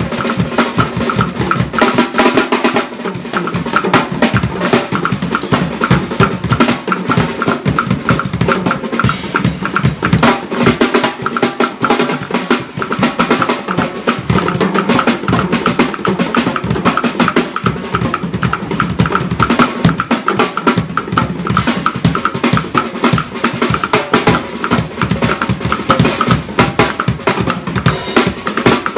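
Acoustic drum kit played fast and without a break: dense snare, tom and bass drum strokes with cymbals over them.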